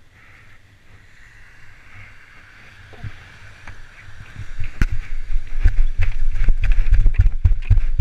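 Faint, steady surf hiss, then from about halfway a run of loud, irregular thumps and rumbles on an action camera's microphone as it is carried down the beach into the shore break, with wind buffeting and knocks on the housing.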